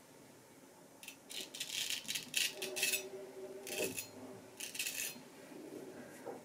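Vintage Nashville Barber Supply Kaeser's No. 402 straight razor scraping through stubble on the neck: a series of short scraping strokes, grouped between about one and five seconds in.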